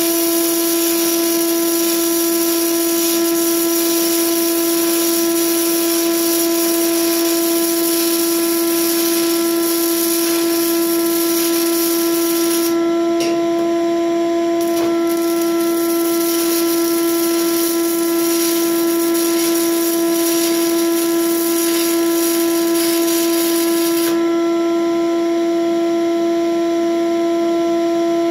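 Shop vacuum pulling welding fumes through a hose, running with a steady whine, over the crackling hiss of a stick-welding arc burning a 6011 rod. The arc hiss breaks off for a second or two about halfway through, then stops a few seconds before the end while the vacuum runs on.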